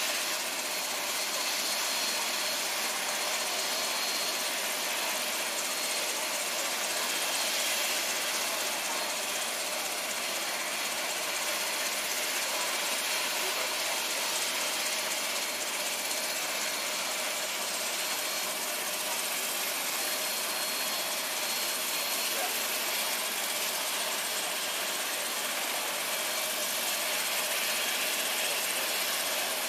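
A steady engine drone with hiss, unchanging throughout, like a vehicle idling.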